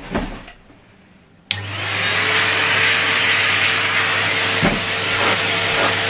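Numatic Hetty HET 160 bagged cylinder vacuum cleaner switched on with a click about a second and a half in, its motor spinning up within half a second to a steady running hum over a loud rush of air. A brief knock a little past the middle.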